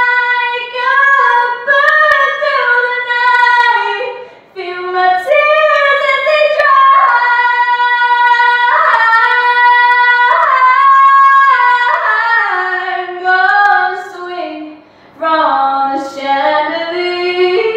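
A woman singing unaccompanied in long held high notes, sliding between pitches, with the echo of a tall, hard-walled room. The notes dip lower near the end.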